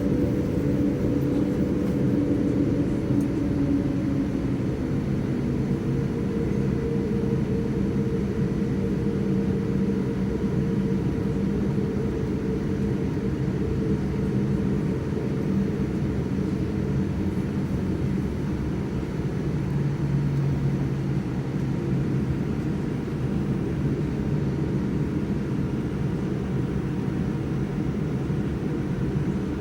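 Boeing 787-8 jet engines running steadily: a low drone with several steady hums that slowly shift in pitch, without any clear rise in loudness.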